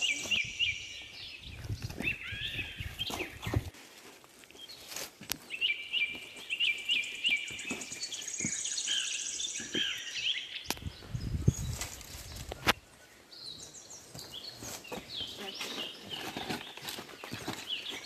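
Wild birds chirping and calling in forest, with many short rising and falling chirps and a high trill about halfway through. Under them are scattered clicks and two spells of low rumbling, one early and one past the middle.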